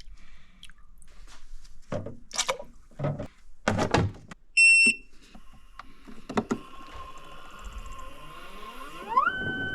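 A few knocks and clatter from handling, then a single loud electronic beep from an appliance's control panel, about half a second long. Afterwards a faint steady tone, with several tones rising in pitch near the end and then holding steady.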